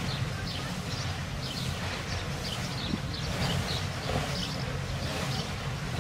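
Electric inflation blower of an inflatable bouncy castle running steadily: a constant low hum with a rushing noise, as it keeps the castle inflated.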